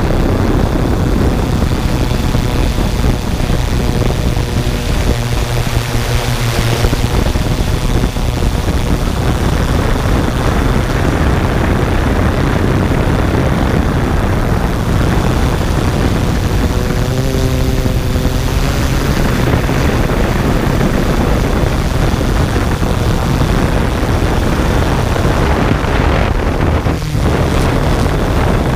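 Camera drone's propellers and motors whirring steadily, recorded close up with wind noise; the motor pitch shifts twice as it manoeuvres.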